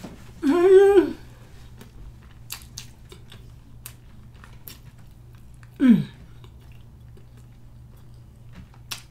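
A person chewing a mouthful of hard-boiled egg, with faint wet mouth clicks; a loud hummed 'mm' about half a second in and a short vocal sound falling in pitch about six seconds in.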